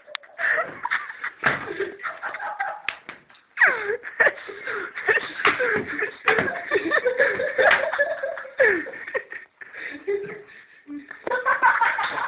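A group of people laughing, mixed with bits of talk that cannot be made out.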